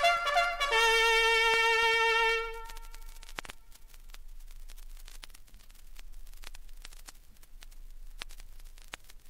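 A brass horn call, bugle-like, ends on a long held note that fades out about two and a half seconds in. After it there are only the scattered ticks and crackle of vinyl record surface noise.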